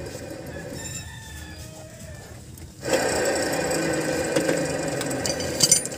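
Suzuki Multicab front brake disc and hub spinning freely on a worn spindle bearing, which rattles and knocks as it turns. The bearing is the cause of the drone heard while driving. The noise jumps louder about three seconds in, and a few sharp clicks come near the end.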